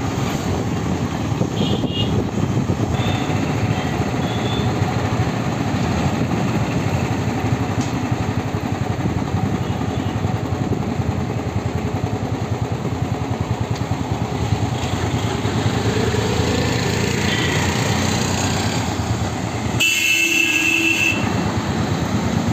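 Steady road-traffic noise on a busy street, with motorcycle, truck and car engines and tyres going by. About twenty seconds in, a brief louder sound with a steady high tone cuts in.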